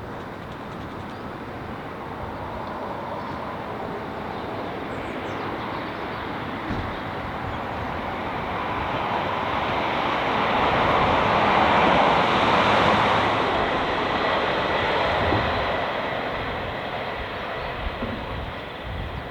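A train passing: the rumble and rush of it builds steadily, is loudest a little past halfway, then fades as it moves away, with a faint steady whine running through it.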